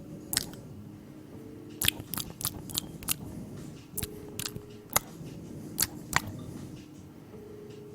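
Exaggerated gum-chewing sounds: irregular sharp crunching clicks, some in quick clusters, over a low steady hum.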